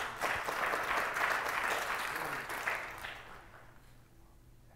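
Congregation applauding, a burst of many hands clapping that dies away over about three seconds.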